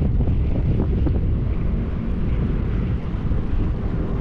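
Strong wind buffeting the microphone: a loud, low, gusting rumble.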